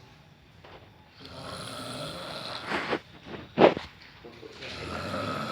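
A sleeping person snoring: after a brief quiet, a long noisy breath, then two short sharp snorts about three seconds in, the second much the louder, and another long snoring breath near the end.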